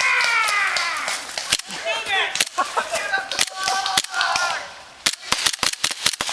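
Airsoft gas blowback pistol firing: single sharp cracks of the slide cycling, scattered shots and then a fast string of about eight near the end. Voices shout in between, a long falling yell at the start.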